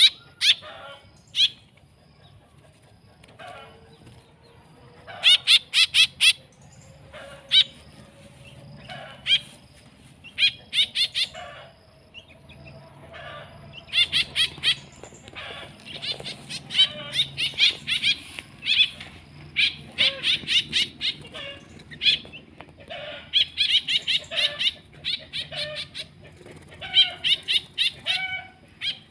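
Small birds chirping: quick runs of short, sharp high notes, repeated in bursts all through, busiest in the second half.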